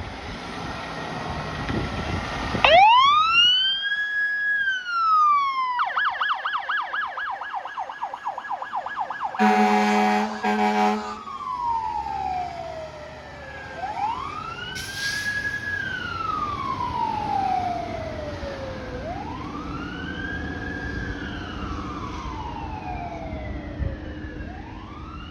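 Fire engine siren: one rising and falling wail, then a fast yelp for a few seconds, then a loud air horn blast about ten seconds in. Slow wail cycles follow, rising and falling about every five seconds. Engine and road noise come before the siren starts.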